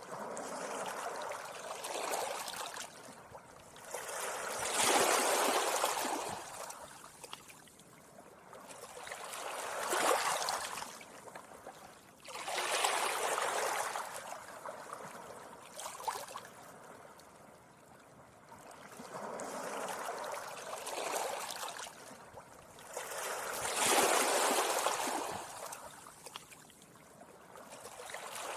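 Small sea waves washing onto a beach, each one swelling and receding about every four to five seconds.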